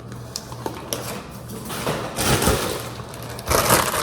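Unpacked items and their packaging being handled: rustling with scattered clicks and knocks, louder about two seconds in and again near the end.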